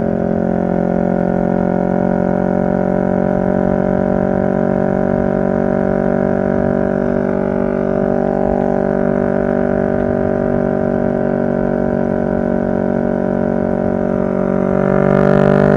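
2023 CFMoto 650NK's parallel-twin engine running at a steady engine speed with an even drone. About a second before the end its note rises slightly and gets louder as the throttle opens.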